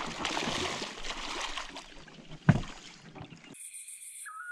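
Water splashing and sloshing around a small boat, with a single sharp knock about two and a half seconds in. Near the end the sound cuts off abruptly to a few steady high-pitched tones.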